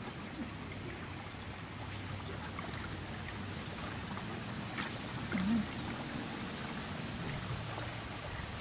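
Shallow muddy stream water lightly splashing and sloshing as hands grope along the bottom, with scattered small drips and clicks over a steady outdoor hiss. A short, low, wavering sound stands out a little past halfway through.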